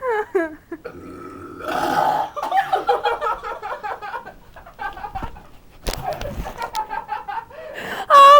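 A person burping, with a long drawn-out burp starting about a second in.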